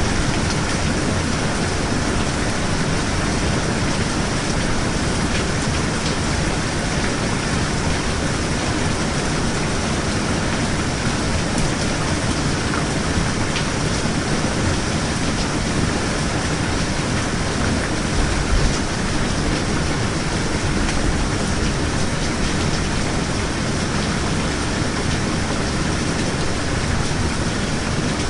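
Steady heavy rain falling, an even hiss with no let-up. A brief low thump comes about two-thirds of the way through.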